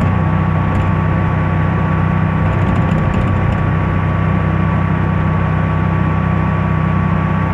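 25-horsepower Kohler V-twin engine in a 1987 Dodge Ram 50 pickup running steadily at a road cruise, heard from inside the cab, with a thin steady whine above the low engine drone.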